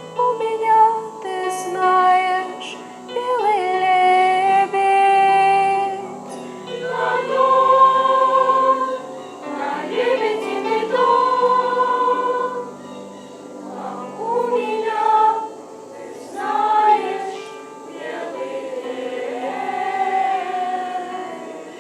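A choir singing a slow song in phrases of long held notes over a low, steady accompaniment.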